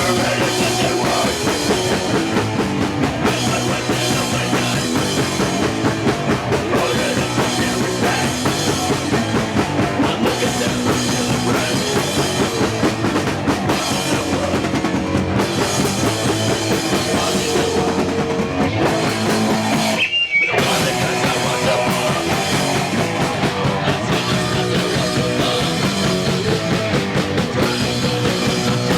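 A punk band playing live, drums and guitar going loud and dense, with a short break in the sound about twenty seconds in.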